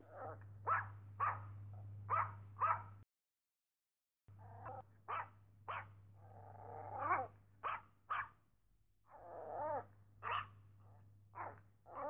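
Dog barking: a quick run of about five short, sharp barks, then a second or so of dead silence, then another stretch of barks mixed with longer calls that slide down in pitch.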